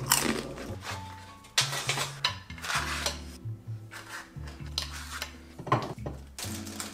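A spatula scraping and knocking against a metal baking sheet and a plate as pizza slices are lifted and served, in several short scrapes, over background music with a low bass line.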